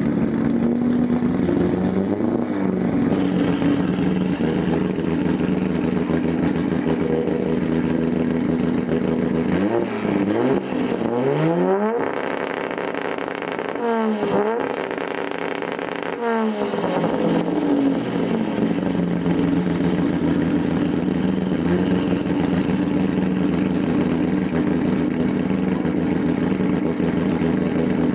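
Toyota Supra's straight-six engine running at a steady raised speed behind the exhaust. About ten seconds in it is revved up hard, held high with a few quick dips for around four seconds, then drops back to the steady note.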